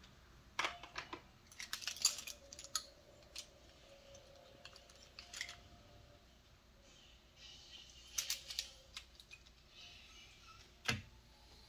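Scattered small clicks and rattles, coming in several short clusters with quiet gaps between them.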